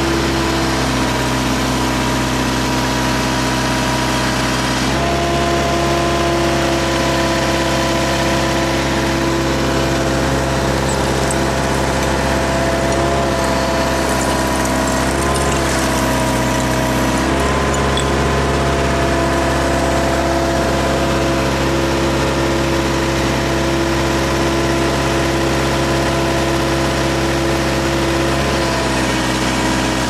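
Case 580E backhoe's engine running steadily while the machine digs. Its speed steps up about five seconds in, dips briefly in the middle, and drops near the end.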